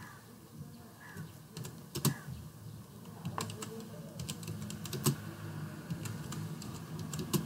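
Computer keyboard being typed on: irregular keystroke clicks, a few of them louder, over a low steady hum.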